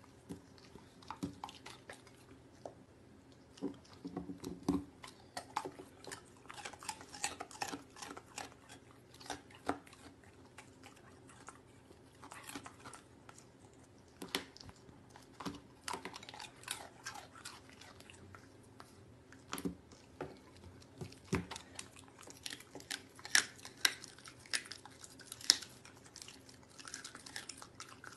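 German Shepherd dog chewing boar meat and lamb tail: irregular wet chews with sharp crunches and clicks, coming thicker and louder in the last few seconds.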